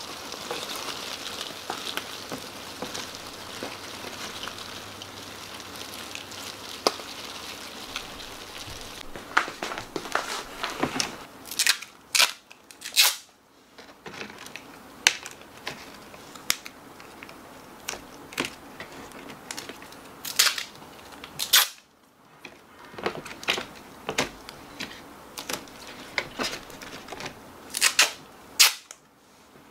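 Rustling over cardboard egg-carton trays, then a series of short, sharp rips of packing tape as pieces are torn off and pressed down. Light clicks and crinkles come from a plastic mesh sheet being handled over a plastic bin.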